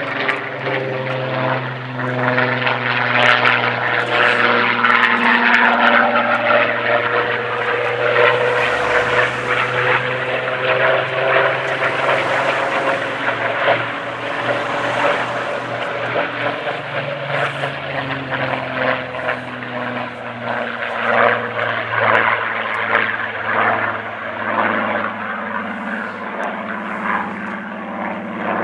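Supermarine Spitfire's V12 piston engine during a low display flight, running at power as the aircraft dives, banks and passes overhead. Its note falls away as it passes, then climbs and falls again as it comes round.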